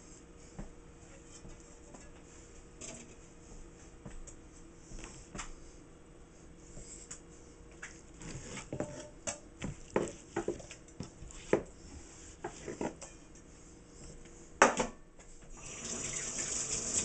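Knocks and taps of fish pieces and a wooden bowl being handled on a wooden cutting board, with one sharp click, then a kitchen tap starts running into the sink near the end.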